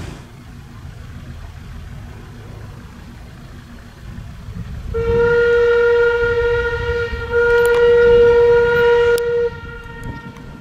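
The steam whistle of QR C17 class 4-8-0 steam locomotive C17 974 sounds one long, loud blast of about four and a half seconds, dipping briefly midway, as the train approaches a level crossing. Before the whistle, the approaching train makes a low rumble.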